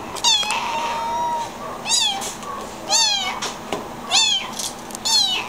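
A very young kitten, too young to be away from its mother, crying for her: five short, high-pitched meows about a second apart, each falling in pitch.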